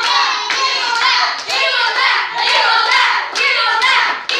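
A group clapping in a steady rhythm, about three claps a second, with several voices chanting along.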